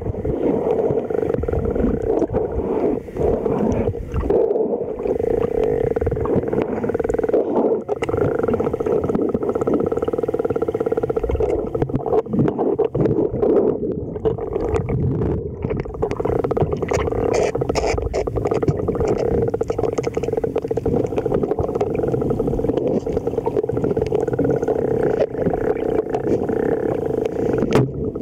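Underwater sound in a swimming pool: muffled sloshing and gurgling of water as a small dog paddles, over a steady hum.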